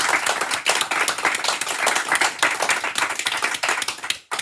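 A group of people clapping, dense and irregular, thinning out just after four seconds in with one last clap before it stops abruptly.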